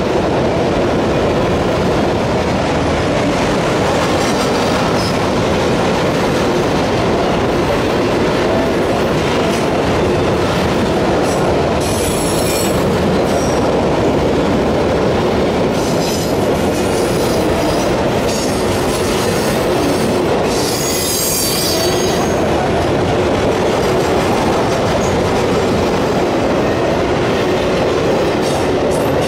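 Freight train of autorack cars rolling steadily past, with continuous rumble and the clatter of wheels on the rails. Brief high squeals from the wheels come about twelve seconds in and again around twenty-one seconds.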